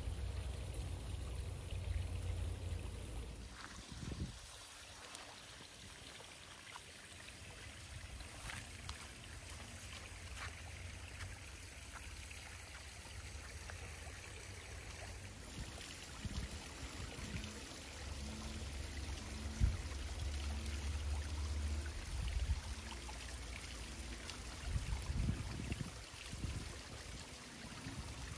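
Water trickling and running steadily into a garden pond, with a low rumble that comes and goes.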